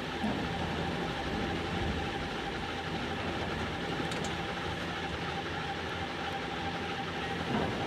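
Steady mechanical hum and rumble with a constant mid-pitched tone running underneath.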